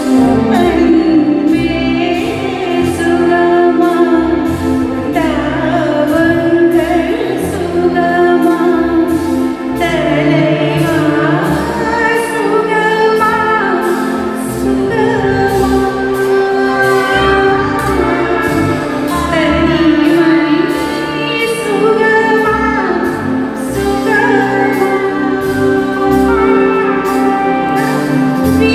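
Live band music through a concert PA: a violin melody with sliding notes over keyboard and a steady drum beat.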